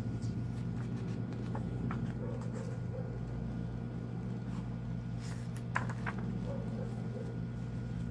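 Paper pages of a softcover book being turned by hand: a few short rustles and crisp clicks, the most distinct pair about six seconds in, over a steady low hum.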